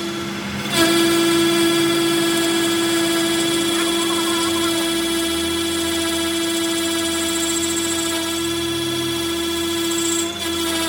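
Workshop machine's electric motor running with a steady, even hum, briefly cutting out under a second in and again near the end.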